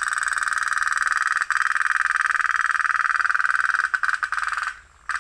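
Tin pop-pop toy steam boat running, its boiler giving a fast, steady buzzing putter. It cuts out about four and a half seconds in, with a couple of short sputters just before the end.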